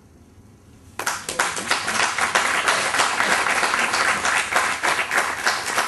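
Audience applauding. The clapping breaks out suddenly about a second in after a brief quiet and goes on steadily as a dense patter of many hands.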